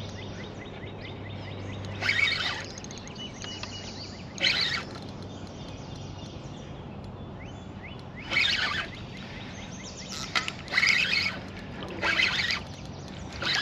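A spinning reel's drag buzzing out in short bursts of about half a second, six or so times, as a hooked carp takes line against it. A low steady hum runs underneath.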